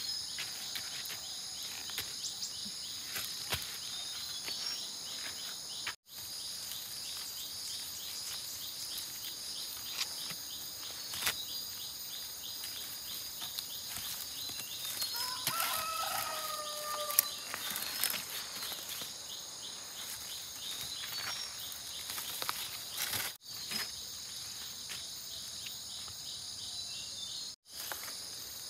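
Steady high-pitched chorus of insects such as crickets and cicadas, with scattered clicks and rustles. About halfway through, a rooster crows once in the distance. The sound drops out for an instant three times.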